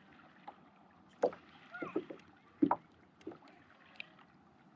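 A few scattered light knocks and clicks of fishing gear and paddle against a kayak hull.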